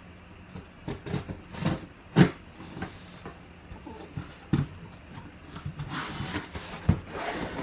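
Handling noise: scattered knocks and taps, with a rustle about six seconds in.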